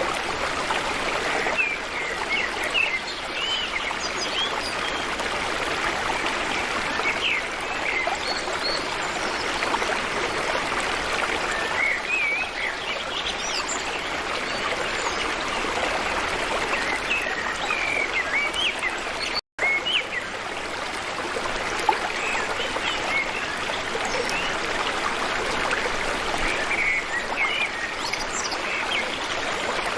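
Water of a stream running steadily, with small birds chirping now and then. The sound cuts out for an instant a little past the middle.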